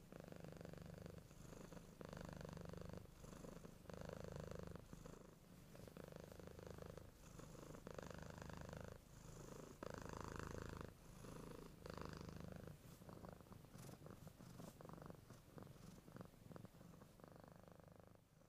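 A cat purring faintly, each purr lasting about a second with short breaks between them as it breathes in and out.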